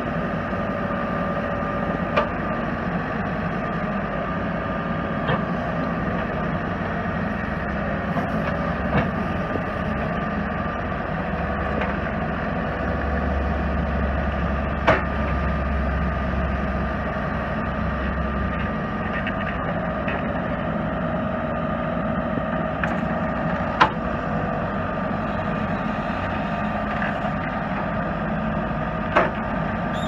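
Diesel engine of a 2005 New Holland backhoe loader running steadily while the backhoe boom and bucket are worked, with about six sharp metallic clunks spread through. A deeper rumble swells for a few seconds midway.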